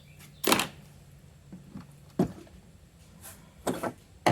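Handling noises while working on the bike: a short sliding scrape about half a second in, a sharp click a little after two seconds, and a few light knocks near the end, over a low hum that stops with the click.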